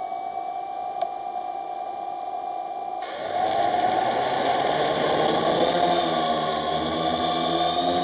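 Small camera drone's electric motors and propellers whirring while it sits on the ground, then spooling up louder with a rising whine about three seconds in as it lifts off, heard through the drone's own onboard camera.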